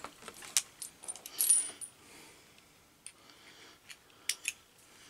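Armscor M206 revolver and loose brass cartridge cases being handled while the reformed .38 S&W cases are tried in its cylinder: scattered light metallic clicks and clinks, the sharpest near the end.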